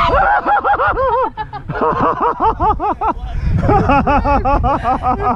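Excited high-pitched laughing and squealing, a rapid run of short rising-and-falling cries, with wind rumbling on the microphone.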